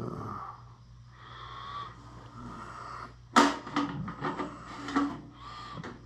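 Small metal tools being handled and set down: a sharp knock about three and a half seconds in, then several lighter clinks and knocks, over a steady low hum.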